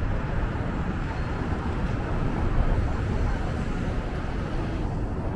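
Steady city street ambience: a low rumble of traffic with a noisy wash over it.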